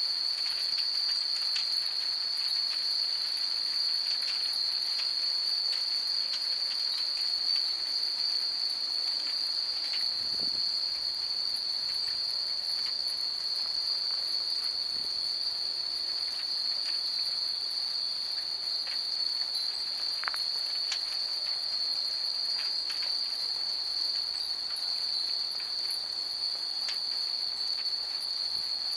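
Japanese furin wind chimes tinkling sparsely in the breeze, light scattered pings with one clearer ring about twenty seconds in. Under them runs a steady high-pitched chirring of night insects.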